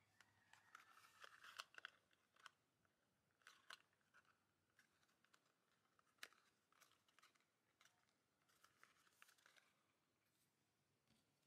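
Faint handling noise from a miniature cardboard toy box being opened by hand: soft crinkling, scraping and small taps in short clusters, with one sharp tick about six seconds in.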